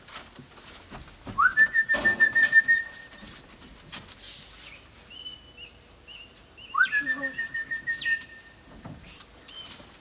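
A person whistling to call wild parrots: two long whistles a few seconds apart, each sliding up and then held on one slightly warbling note for about a second and a half.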